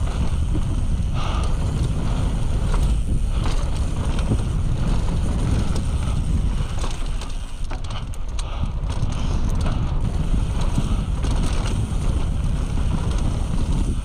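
Mountain bike rolling fast down dry dirt singletrack: wind rumbling on the microphone over tyre noise on the dirt, with occasional clicks and rattles from the bike.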